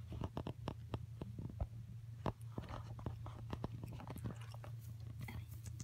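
A cat biting and chewing blades of cat grass close to the microphone: a run of small, irregular crunching clicks.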